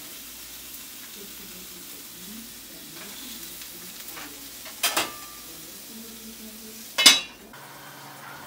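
Sausages and ham sizzling in a skillet, with a metal utensil clanking sharply against the pan twice, about five and seven seconds in, the second the louder. The sound then cuts off abruptly.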